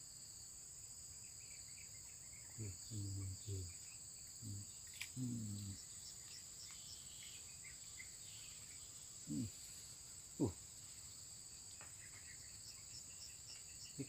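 A steady, high-pitched insect chorus. A few short, low, voice-like sounds come about three to six seconds in, and two quick downward sweeps in pitch follow near the end of the first ten seconds, the second of them the loudest sound.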